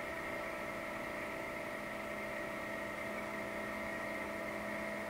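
Royal Master TG12x3 centerless grinder running with its grinding wheel spinning at constant speed: a steady hum with several steady whining tones.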